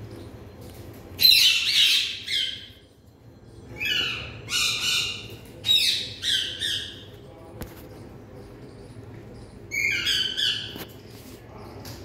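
Indian ringneck parakeets squawking: four bouts of high-pitched calls, each about a second long, the first about a second in and the last near the end.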